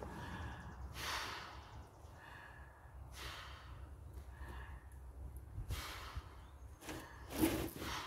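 A person inflating a vinyl inflatable pool by mouth: quick, noisy breaths drawn in every couple of seconds between long blows into the valve, with a faint thin tone while the air goes in. The loudest breath comes near the end.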